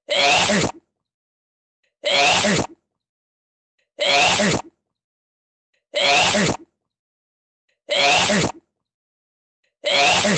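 A single human sneeze repeated over and over as a loop, one sneeze about every two seconds with dead silence between, six in all.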